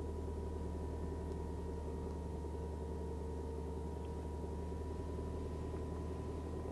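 Subaru engine idling, a steady low hum heard from inside the car's cabin.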